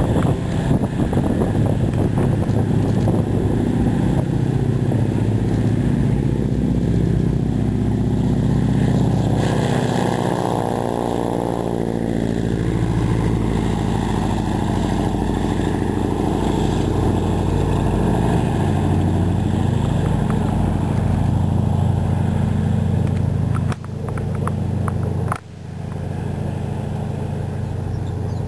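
Engine of a 1929 Hamilton monoplane running at takeoff power as the plane lifts off and passes close by. Its pitch drops as it goes past about ten seconds in, then it keeps droning as the plane climbs away.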